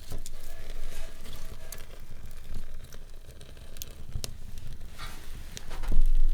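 Food sizzling in a frying pan, with scattered clicks of a utensil against the pan and a dull knock near the end.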